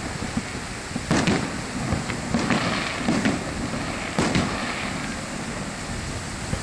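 Aerial firework shells bursting at a distance: a string of booms with echoing tails, the loudest about a second in and again about four seconds in, over a steady low rumble.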